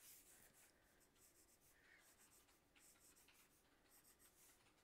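Faint scratching of a pencil drawing short, irregular strokes on paper.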